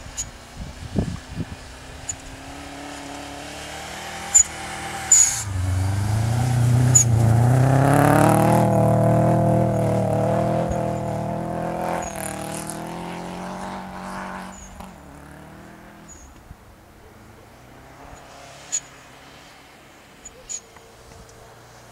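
Subaru Impreza WRX's turbocharged flat-four engine revving hard as the car slides through deep snow. It grows louder as it comes close, is loudest about eight seconds in, then fades as it drives away. A few sharp clicks sound along the way.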